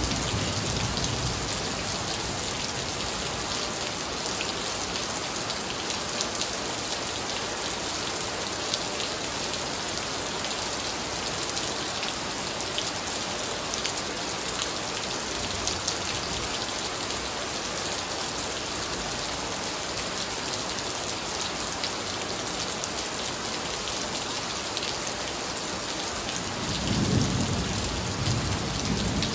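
Heavy tropical rain pouring onto a wet tiled terrace and garden foliage: a dense, steady hiss of splashing drops. A low rumble of thunder swells near the end.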